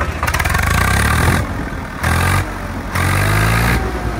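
Swaraj tractor's diesel engine revved three times through its upright exhaust pipe, dropping back toward idle between each rev.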